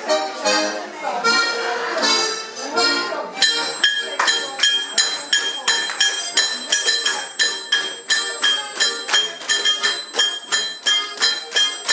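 Accordion playing a folk dance tune. About three and a half seconds in, hammer blows on an anvil start in a steady rhythm, about two a second, each strike ringing on at the same high pitches over the music.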